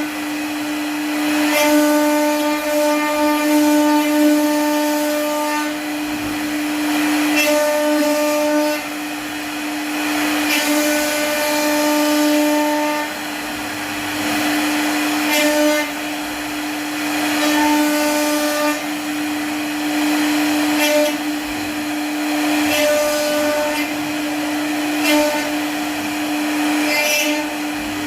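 CNC wood router's high-speed spindle running with a steady whine while it cuts wood. A second, higher set of tones cuts in and out every couple of seconds as the machine moves.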